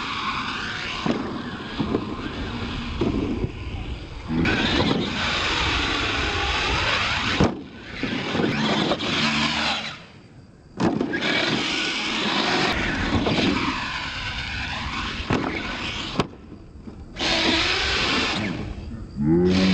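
Scale R/C monster truck's electric motors whining up and down in pitch as the throttle is worked through a freestyle run. Several sharp knocks as the truck lands off the ramps and tumbles, with short lulls when it comes off the throttle.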